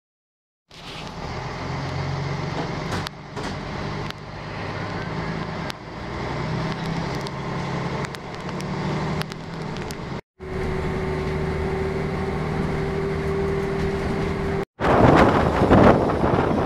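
Cabin sound of a Chavdar 130 bus on the move: its LIAZ ML636 inline-six diesel pulls through the Praga 2M70 gearbox, with several brief dips in the engine sound. Later a steady whine runs over the engine, and near the end loud wind rushes in at the open window.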